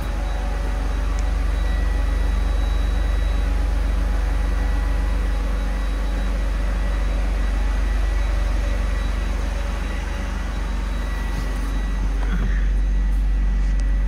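The 3.2-litre straight-six of a 1996 Mercedes-Benz SL320 idling steadily.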